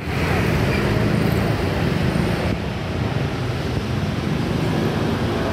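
Street traffic noise: a motor vehicle engine running close by with a low, steady drone, over a constant haze of road noise.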